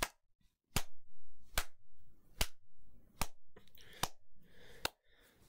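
Sharp clicks or snaps repeating at an even, slow beat, a little more than one a second, seven in all.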